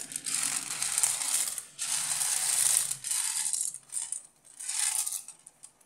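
Dry macaroni rattling and clattering as handfuls are scooped off a plate and dropped into the soup pot, in several bursts that die away near the end.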